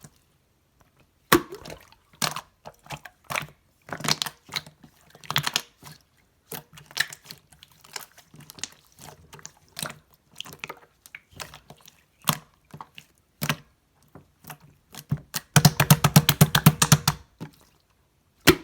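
Slime being pressed and squished by hand, giving irregular sticky pops and clicks, with a quick run of rapid crackling pops near the end.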